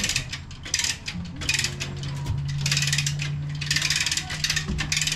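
Come-along (lever hoist) ratcheting in repeated bursts of rapid clicks, about one stroke a second, as it lowers a marine engine on its hoist line. A steady low hum runs underneath from about a second in.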